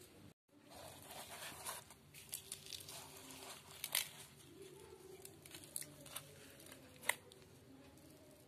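A hand tearing and handling crisp fried beetroot kachoris on a steel plate: faint crackling and tearing with a few sharp clicks.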